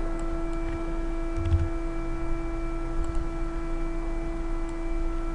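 A steady humming tone held at one pitch over a low buzz, with a few faint clicks and a soft thump about one and a half seconds in.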